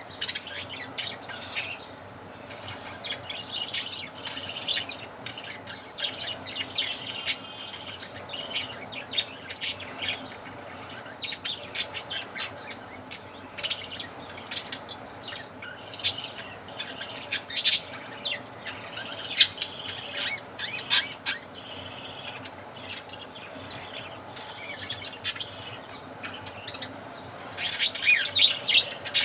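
Several budgerigars chirping and chattering, a steady run of short, sharp chirps and clicks, growing busier near the end.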